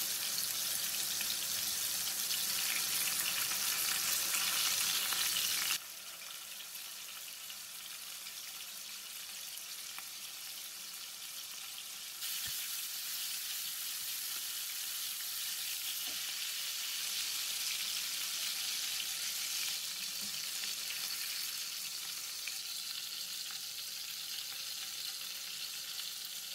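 Minced-meat kebabs shallow-frying in hot oil in a pan: a steady sizzle. It drops in level about six seconds in and picks up again about halfway through.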